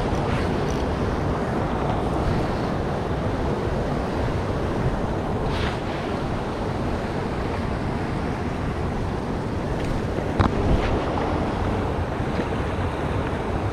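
Steady rush of a shallow creek running over rocks and riffles, mixed with wind buffeting the microphone. A few brief clicks stand out, the clearest about five and a half seconds and about ten and a half seconds in.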